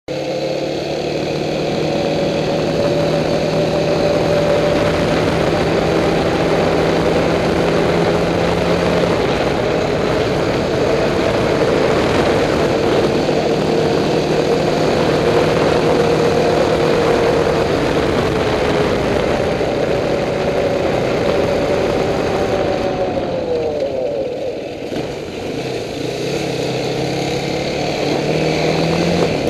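ATV engine running at a steady throttle while riding. About three-quarters of the way through, its pitch drops as the throttle eases off, then rises again as it picks back up.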